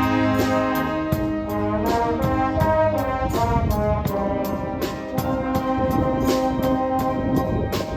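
Brass band music: held chords over a steady beat.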